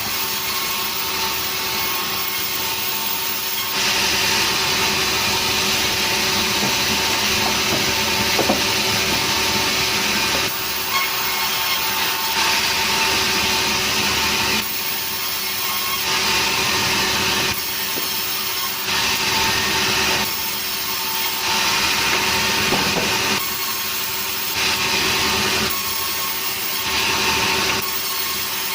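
Sawmill saw running with its motor's steady hum, the cutting noise swelling in repeated stretches of one to several seconds as the blade goes through nering wood.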